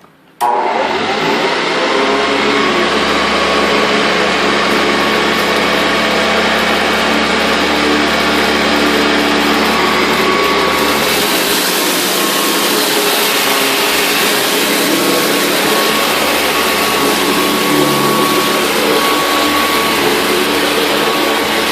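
Hoover Convertible upright vacuum cleaner switched on about half a second in, then running steadily with its motor and brush roll. It grows brighter and hissier about halfway through.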